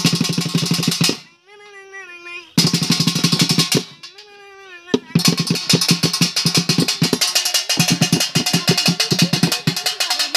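Sambalpuri dulduli baja-style drumming, fast and dense. Two short bursts of strokes are each followed by a gliding pitched melody line. The drumming then runs on without a break from about halfway through.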